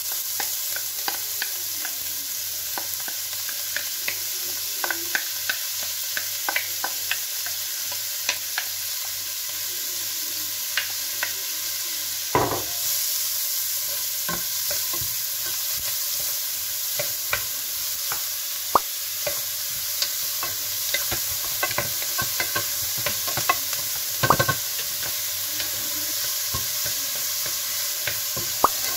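Diced onion, green pepper and carrot sizzling in oil in a pot while a wooden spoon stirs them, with many short scrapes and clicks against the pot. Two louder knocks come about halfway through and near the end.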